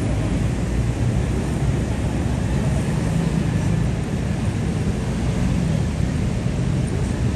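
Steady city street ambience: a continuous low rumble of traffic with an even wash of noise above it.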